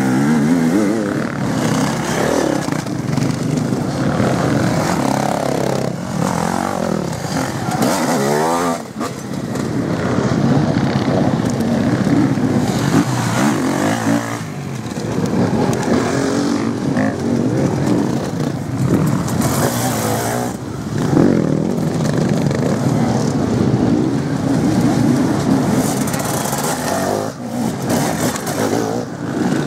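Enduro motorcycle engines revving up and dropping back as riders pass close by on dirt, the pitch rising and falling repeatedly. Several short takes are cut together, so the sound changes abruptly a few times.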